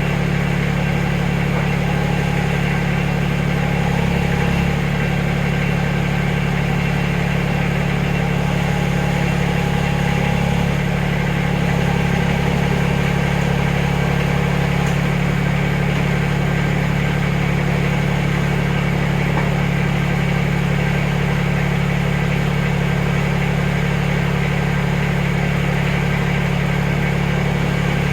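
Backhoe engine running at a steady speed, its note shifting slightly a few times in the first half.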